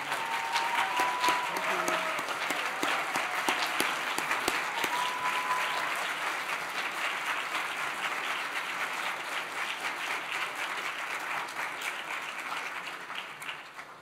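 Large audience applauding, with a few cheering calls in the first two seconds and again about five seconds in; the applause dies away near the end.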